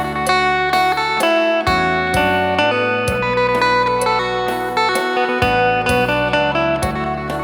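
Phin (Isan lute) played through a custom contact pickup: a quick run of plucked melody notes over a low drone.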